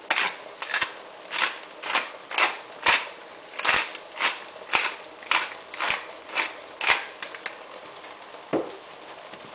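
Pepper mill grinding peppercorns, one rasp with each twist of the top, about two a second, stopping about seven seconds in.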